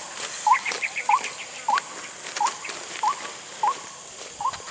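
White-breasted waterhen (ruak-ruak) calling: a short, upward-hooked note repeated steadily about every two-thirds of a second, with a brief quick high trill about half a second in and light footsteps on grass.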